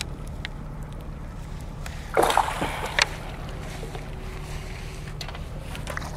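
A hooked tilapia splashing at the water's surface as it is brought to the landing net, with one loud splash about two seconds in and a sharp knock about a second later.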